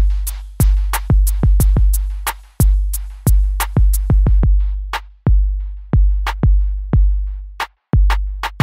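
Background electronic music: a drum-machine beat with sharp hits over a deep sustained bass.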